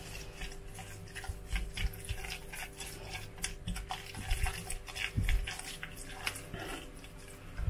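Thick yogurt-and-mayonnaise tarator sauce being stirred with a spatula in a glass measuring jug, in quick, irregular strokes. A faint steady hum runs underneath.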